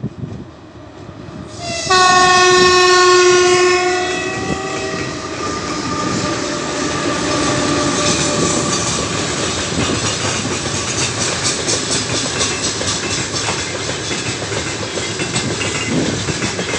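3ES5K 'Ermak' electric freight locomotive sounding one horn blast of about two to three seconds as a greeting while passing close by. Its loaded freight wagons then roll past, wheels clattering rhythmically on the rails.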